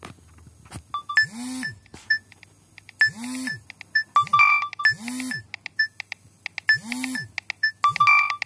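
A Nokia 7210 ringtone starting about a second in: a low electronic tone that swoops up and falls back, with a hiss above it, repeating about every two seconds among short high beeps.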